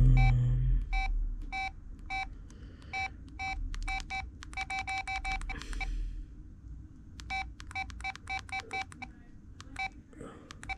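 LG VM101 phone's keypad beeps as menu keys are pressed: short identical beeps, singly at first and then in quick runs, after a brief loud low buzz in the first second.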